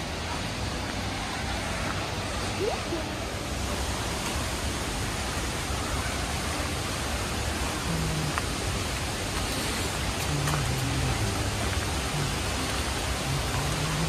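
Steady, even rush of the Giessbach Falls, a continuous noise of falling water with no breaks.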